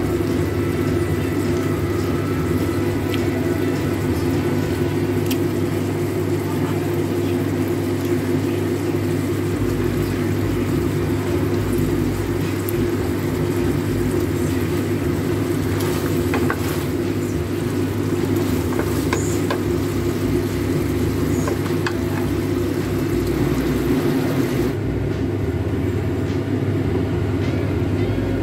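A steady low rumbling hum with a constant drone, machine-like and unbroken; the faint high hiss over it drops away about 25 seconds in.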